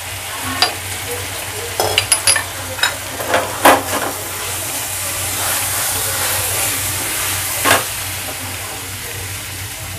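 Onions, capsicum and sauces sizzling in a nonstick frying pan over high heat, with a plastic spatula stirring and scraping against the pan. Several sharp clicks and scrapes come in the first four seconds, the loudest near four seconds in, then mostly a steady sizzle.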